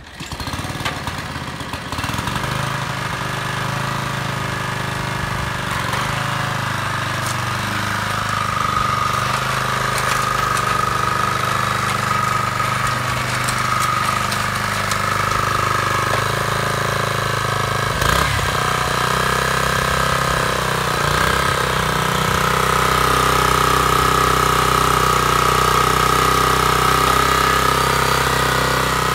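Small single-cylinder engine of a Daishin SFT-241M 2.4 hp mini tiller starting up and settling into a steady, even run within a couple of seconds. One brief clunk comes about eighteen seconds in.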